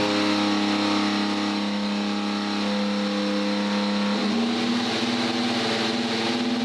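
Ferrari SF-25's 1.6-litre turbocharged V6 Formula 1 power unit running steadily just after its first fire-up on the test bench. The pitch steps up slightly about four seconds in.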